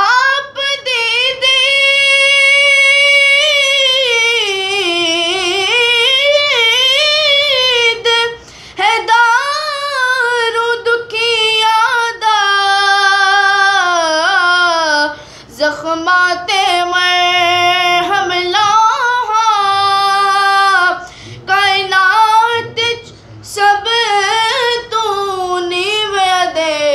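A boy reciting a naat solo and unaccompanied, singing long drawn-out notes with a wavering, ornamented pitch, broken by a few short pauses for breath.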